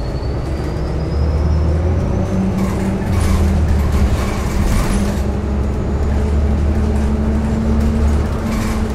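Cabin sound of a 2018 New Flyer XDE40 diesel-electric hybrid bus under way: its Cummins B6.7 diesel and BAE HybriDrive electric drive give a steady low hum. A faint high whine rises in pitch over the first two seconds or so.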